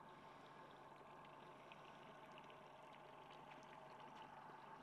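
Near silence: a faint steady hiss with a few soft, scattered ticks.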